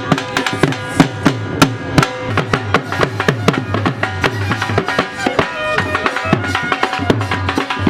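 Background music driven by fast hand-drum beats, with low drum strokes that bend down in pitch, over held melodic tones.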